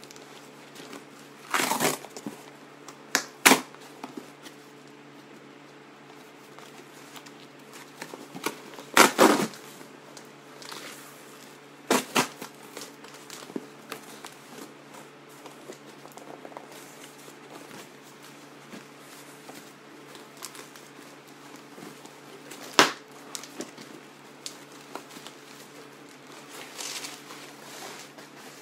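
A cardboard shipping box and its packing tape being ripped open by hand: several sharp, loud tears spaced seconds apart, with crinkling and rustling of the packaging between them.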